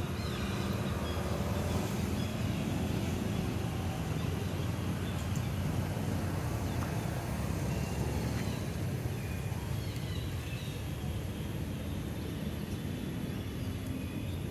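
Steady low background rumble with a few faint, short high chirps over it.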